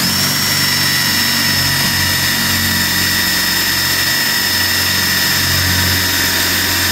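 DeWalt cordless drill turning a hole saw through a plywood bulkhead: a steady motor whine with the saw cutting the wood. It starts at once, its pitch dropping slightly in the first second as the saw bites.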